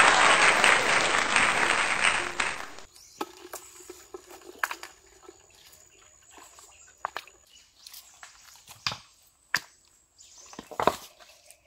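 A loud, even rushing noise cuts off suddenly about three seconds in. After it come scattered clicks and knocks of creek stones being shifted and turned over by hand, with a louder knock near the end.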